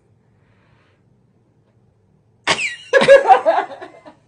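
Near silence, then about two and a half seconds in a sudden loud burst of laughter that starts with a high falling squeal and runs for about a second and a half.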